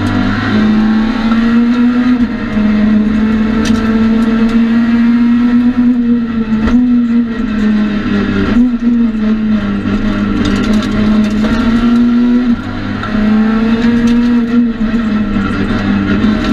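Citroën C2 R2 Max rally car's four-cylinder engine heard from inside the cabin, held high in the revs on a special stage, with the note dropping briefly about four times at gear changes and lifts.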